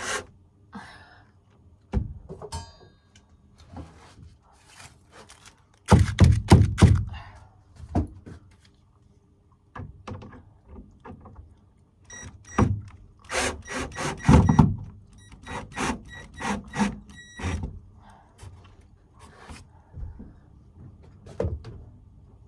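Irregular knocks and thumps of work on thin wooden ceiling boards as they are handled and fitted into place. There is a quick flurry of knocks about six seconds in and a run of sharper, ringing taps a few seconds later.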